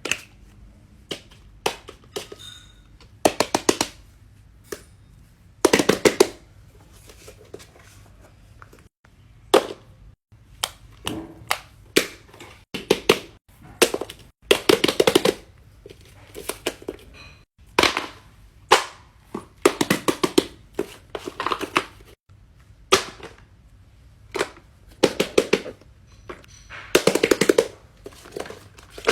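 Plastic fidget toys being handled, clicking and popping in quick bursts of sharp clicks, one burst every second or two.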